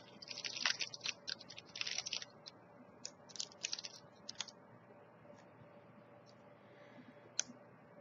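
Plastic granola-bar wrapper crinkling in the hands in quick dense bursts for the first couple of seconds, then a few scattered crackles and ticks. After that there is only a faint steady hum.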